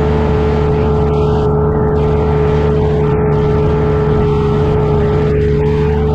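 Engine of a compact earthmoving machine running steadily under work, a constant drone with a strong steady hum over it that does not change.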